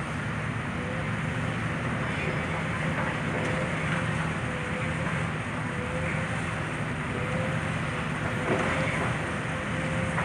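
Heavy demolition machine's engine running steadily under load while it pulls on a cable hooked through the building's I-beams, with a steady higher whine above it and a few faint knocks.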